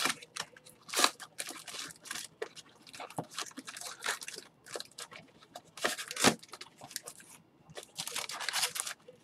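Plastic wrapping being crinkled and torn in irregular short rustles.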